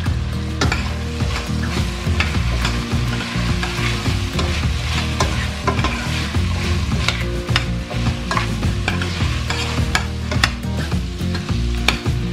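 Chopped leeks, carrots and onion sizzling as they sauté in a stainless steel pot, while a metal spoon stirs through them with frequent short clicks and scrapes against the pot.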